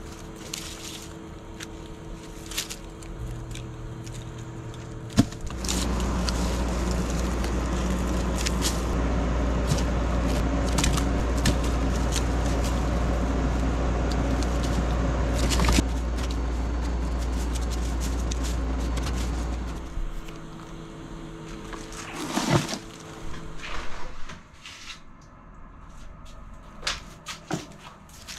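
Garden snips clipping dried onion stalks and roots, with sharp clicks and the knock of onions dropping into a plastic bucket. A loud, steady mechanical hum comes in about five seconds in and cuts off abruptly about fifteen seconds later. Near the end the onions are handled into a wooden basket.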